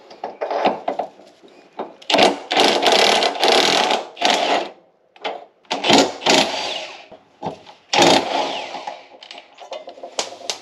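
Kobalt 24-volt cordless impact wrench hammering in several bursts, the longest about two and a half seconds, as it breaks loose the bolts of the rear subframe bracket.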